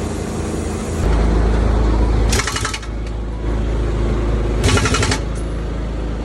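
An engine running steadily, its low rumble growing heavier about a second in, with two short bursts of rapid hammering from a pneumatic impact wrench working on the wheel of a large tractor.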